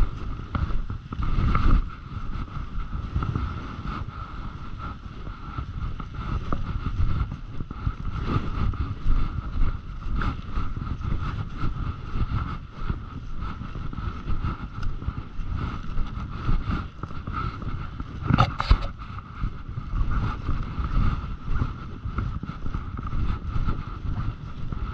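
Footsteps walking through deep dry fallen leaves, with the rustle of a jacket and wind buffeting the microphone, and a faint steady whine underneath. One sharper crackle comes about three quarters of the way through.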